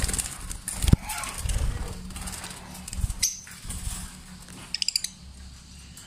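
Lovebirds in a wire cage: knocks and rustling as the cage and camera are handled, with short high chirps, a quick run of four of them about five seconds in.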